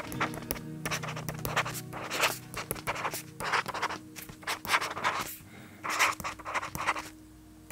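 Stylus nib scratching across the Fujitsu Quaderno A4 Gen 2's e-ink screen in quick, irregular handwriting strokes. It is a very scratchy, paper-like sound, and the strokes thin out near the end.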